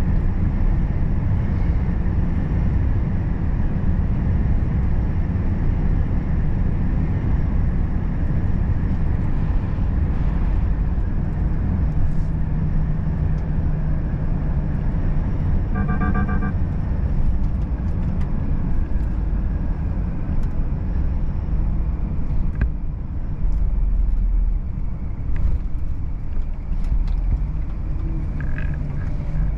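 Volvo FH 540 truck's 13-litre straight-six diesel and road noise heard from inside the cab while driving, a steady low rumble. About halfway through, a short burst of rapid beeps sounds once.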